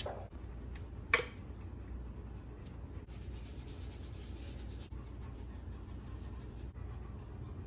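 A chef's knife chopping through a carrot onto a cutting board, with one sharp chop about a second in. Then faint scratching and rustling as seasoning is shaken from a shaker over diced vegetables in a plastic bowl.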